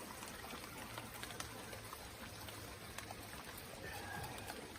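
Light rain falling: a faint, even hiss with scattered drops ticking.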